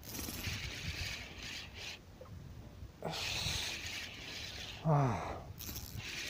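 Rubbing and scraping of hands and gear while a handline is hauled in against a strongly fighting fish. A short grunt falling in pitch comes about five seconds in.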